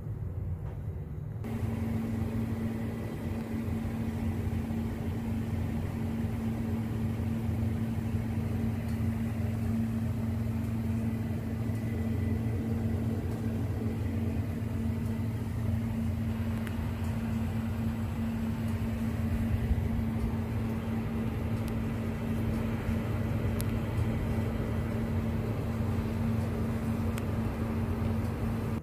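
Steady low machine hum with one constant droning tone over a low rumble, starting about a second and a half in and holding unchanged.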